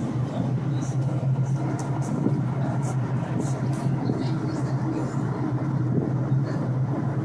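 Car ferry's diesel engines running with a steady low drone, heard from the open car deck as the boat comes in to dock.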